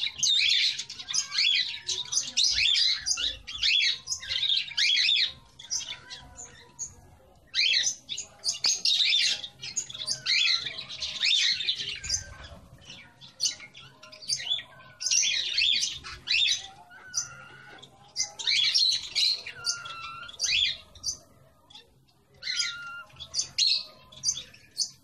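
Cage birds chirping and squawking in busy bursts of a few seconds each, with quieter gaps between them.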